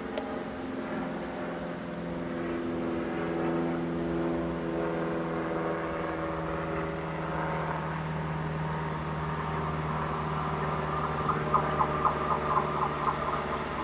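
An approaching train: a steady hum made of several tones, growing a little louder, then a quick rhythmic clatter of wheels over the rail joints near the end as it draws close.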